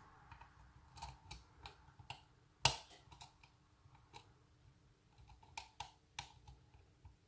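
Lock pick and tension wrench working the pins of a night latch cylinder: irregular light clicks and ticks of metal on metal, with one sharper click a little before the middle.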